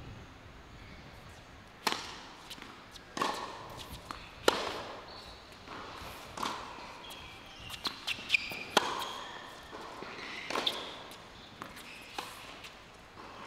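Tennis rally on a hard court: sharp racket-on-ball strikes about every second and a half, with ball bounces in between and a few short high squeaks.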